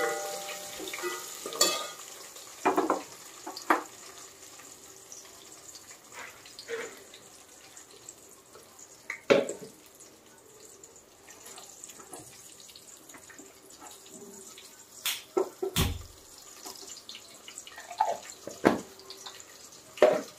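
Whole spices frying in hot oil in a steel pot: a faint sizzle broken by scattered sharp pops and clicks.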